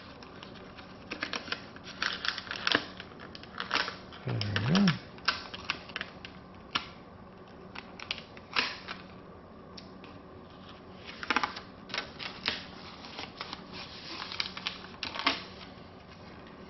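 Clear plastic blade film crinkling, clicking and tapping as it is handled and fed into a polycarbonate lightsaber blade tube by hand, in irregular small bursts. A brief hum from a voice about four and a half seconds in.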